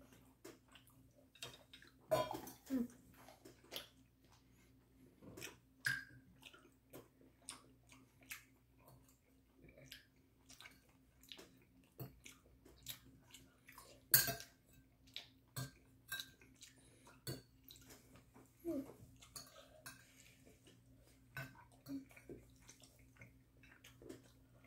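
A metal spoon clinking and scraping on a ceramic plate during eating, with short clicks scattered throughout, the sharpest about 14 seconds in, and some soft chewing. A faint steady hum runs beneath.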